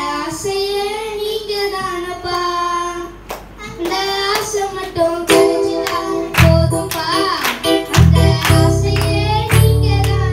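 Two children singing a Tamil Christian song into microphones, alone at first. About six seconds in, a musical accompaniment comes in with a regular beat and a strong bass under their voices.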